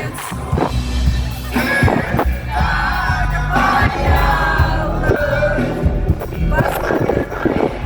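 Live pop song over a concert sound system, with heavy bass and voices singing along.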